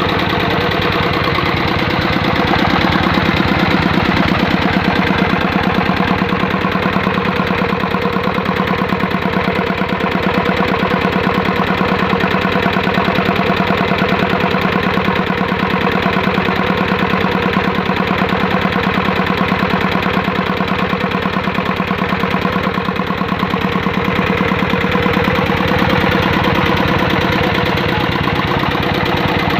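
Single-cylinder 'dompeng' diesel engine running steadily, its rapid, even firing knock going on throughout, getting a little louder for a few seconds early on.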